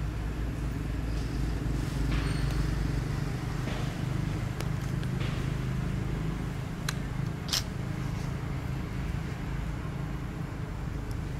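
A steady low rumble with no clear source, joined by a few brief sharp clicks around the middle.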